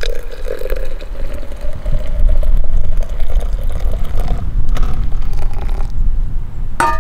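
Strong wind buffeting the microphone as a loud, steady low rumble. A faint drawn-out tone rises slowly through the first few seconds, and a short high squeak comes near the end.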